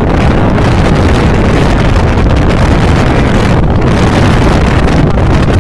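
Loud, steady wind buffeting the microphone from travelling at speed along an open road, a dense low rumble with no break.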